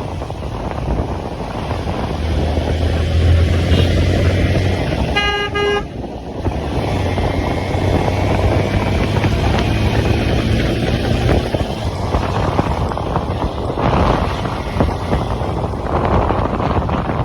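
Motorcycle on the move: steady engine hum under heavy wind noise on the microphone. A vehicle horn sounds once, briefly, about five seconds in.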